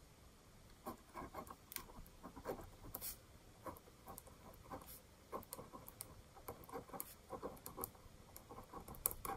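Ballpoint pen writing on paper: faint, irregular short scratching strokes.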